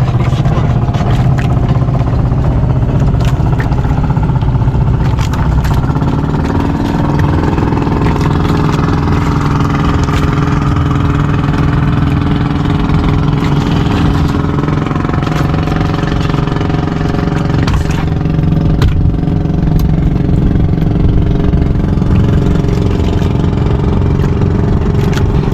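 Fishing boat's engine running steadily, its note shifting up about six seconds in, with scattered light clatter.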